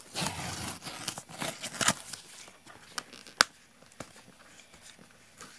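Cardboard mailer box being torn open along its seam, paper and cardboard ripping for about two seconds. A single sharp click follows a little later.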